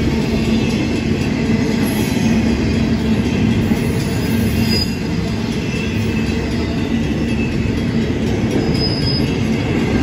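Double-stack intermodal freight cars rolling steadily past with a loud, continuous wheel-on-rail rumble. Brief high wheel squeals come twice, about five and nine seconds in.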